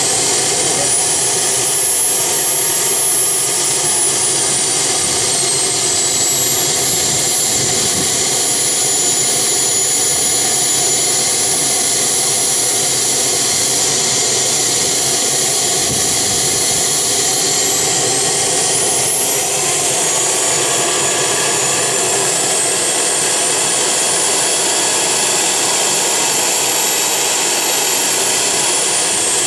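JetCat P-80 model jet turbine running on the ground: a loud, steady rush with a high whine that rises about two seconds in, holds, climbs again about two-thirds of the way through, then falls away near the end as it is throttled back.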